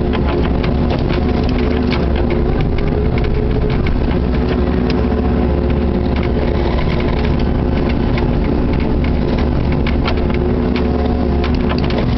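Kubota KX61-3 mini excavator's three-cylinder diesel engine running steadily, heard from inside the cab, with frequent short clicks and scrapes as the bucket breaks up and scrapes ice and gravel.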